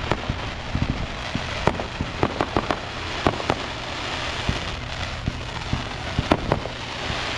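Aerial fireworks going off: an irregular series of sharp bangs and pops, several a second at times, over a steady hiss.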